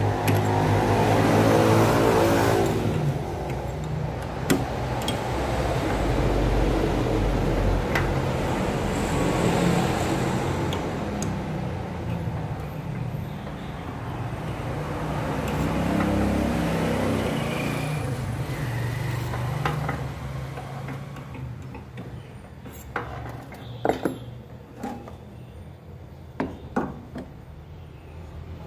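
Sharp metal clicks and taps as a piston is seated and clamped in a lathe chuck and a dial indicator is set against it. Under them runs a steady low hum, with a louder mechanical noise that swells at the start and again about midway.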